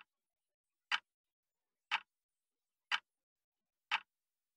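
A clock ticking: single sharp ticks, evenly spaced about one second apart.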